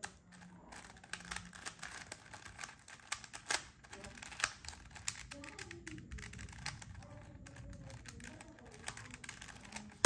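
Stickerless Gan 356 RS 3x3 speed cube being turned rapidly by hand: a quick, irregular run of light plastic clicks and clacks as the layers snap round, with a couple of sharper clacks about three and a half and four and a half seconds in.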